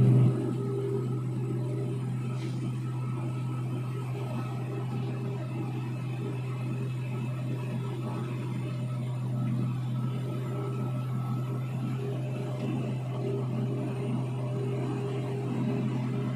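Steady low drone of a heavy-equipment diesel engine heard from inside a machine cab. It drops noticeably in level just after the start, then holds even.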